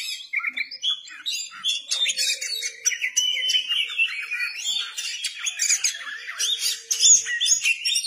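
Oriental magpie-robin (kacer) singing a fast, unbroken, varied song of quick whistles, chirps and harsh notes that slide up and down in pitch.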